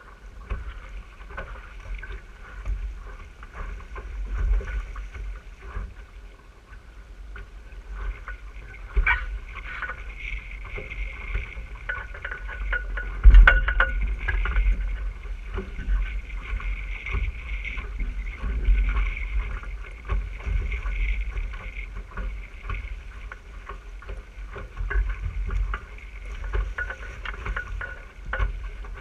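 RS600 sailing dinghy under way: water rushing along the hull and wind buffeting the boat-mounted microphone in a gusty low rumble, with one sharp knock about halfway through.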